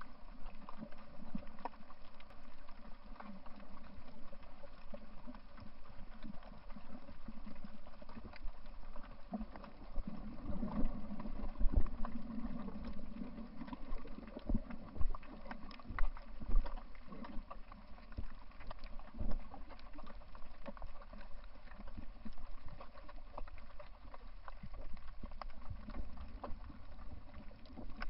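Muffled underwater ambience from a coral reef: a steady rush of water noise with scattered irregular clicks and crackles, and a few louder low thumps.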